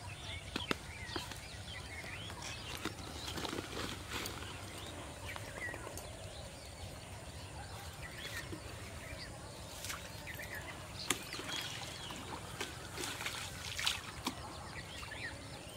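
Outdoor ambience beside a small canal: light water sloshing and trickling, with scattered small clicks and faint chirps throughout.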